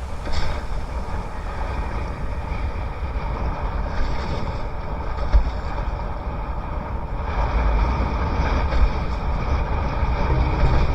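Strong wind buffeting the microphone over the rush of water under a windsurf board planing at speed: a steady, heavy low rumble with rising and falling gusts.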